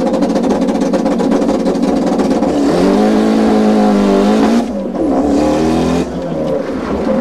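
Race car engine accelerating hard, its pitch climbing steadily. There is a brief drop about four and a half seconds in, then the pitch climbs again.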